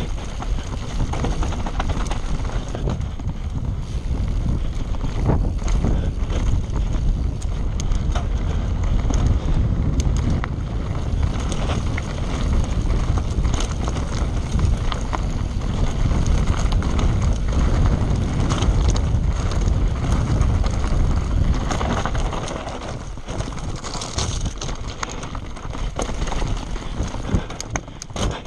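Wind rushing over the helmet-camera microphone as a Scott Spark full-suspension mountain bike with 120 mm travel descends rocky dirt singletrack, its tyres crunching over stones. Many sharp clicks and rattles come from the bike as it hits the rocks.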